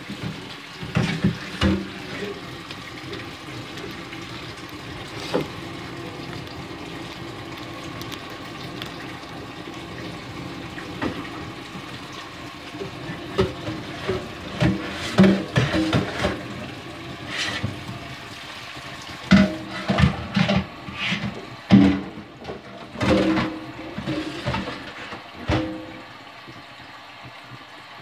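Kitchen tap running into a stainless steel sink while a metal pot is washed, with knocks and clanks of the pot against the sink coming thick in the second half. The running water stops near the end.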